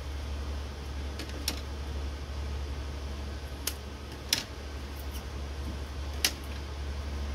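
A handful of short, sharp clicks and taps from scissors cutting washi tape and being set down on a plastic cutting mat, the loudest two about four and six seconds in, over a steady low hum.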